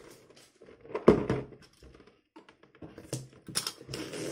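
Cardboard toy boxes being handled and set down on a glass tabletop: one solid thump about a second in, then a few lighter knocks and rustles of the boxes.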